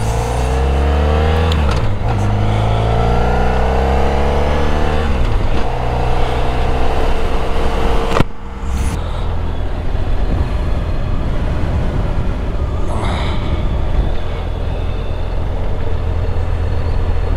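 Motorcycle engine pulling away and accelerating through the gears, its pitch rising and then dropping back at upshifts about two and five seconds in. It then runs at a steady road speed, with a sharp click and a brief dip in level about eight seconds in.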